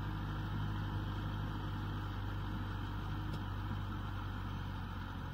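Kubota M6040SU tractor's diesel engine running steadily under load as it pulls a disc plough through wet, muddy soil.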